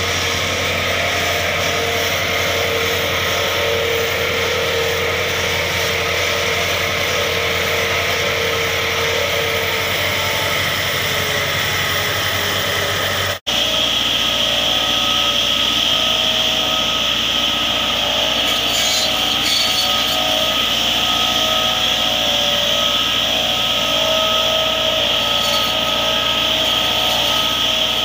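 Massey Ferguson 385 tractor's four-cylinder diesel running steadily while its front-mounted hydraulic pruner spins its disc saw blades through tree branches. About halfway through the sound drops out for an instant and comes back with a brighter hiss.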